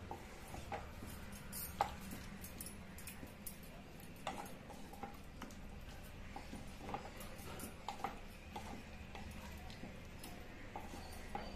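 Wooden spatula stirring cauliflower curry in a nonstick pan, making irregular knocks and scrapes against the pan, the loudest about two seconds in, over a low steady hum.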